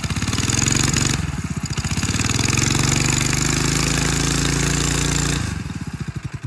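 Small engine of a homemade drift cart running at high revs. It dips about a second in, climbs back and holds steady, then drops off near the end, its firing slowing into separate pulses as it winds down.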